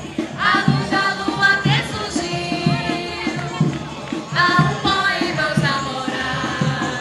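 Bloco lírico orchestra and choir performing: voices singing over a steady rhythmic accompaniment with light percussion, with sung phrases rising in about half a second in and again a little past halfway.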